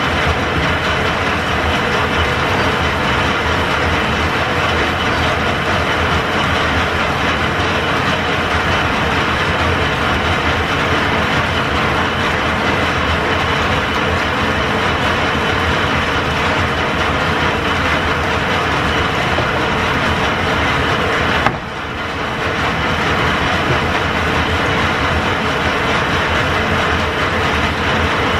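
Belt-driven metal lathe, powered from an overhead line shaft, running steadily with a continuous mechanical clatter of gears and belts. About two-thirds of the way through there is a sharp click and the noise briefly dips before coming back up.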